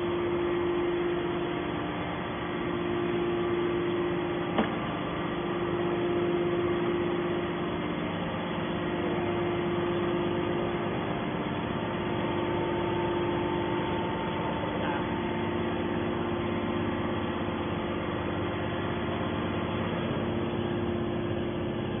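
Hydraulic metal baler's power unit running idle with a steady hum and a constant tone, with a single click about four and a half seconds in.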